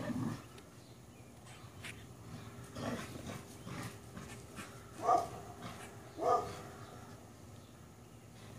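A dog barking at squirrels, a few short barks with the two loudest about five and six seconds in.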